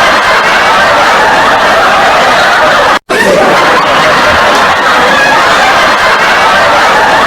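Loud snickering and laughter from many overlapping voices, cutting out for an instant about three seconds in and then starting again.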